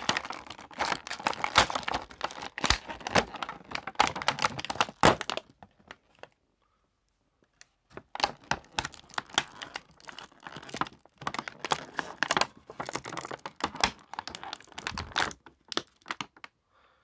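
Clear plastic blister packaging crinkling and crackling as an action figure is worked free of it. It comes in two long stretches with a pause of a couple of seconds about a third of the way in, then only a few scattered crackles near the end.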